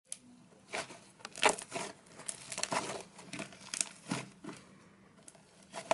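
Irregular crinkling and crackling handling noises, coming in short separate bursts several times a second.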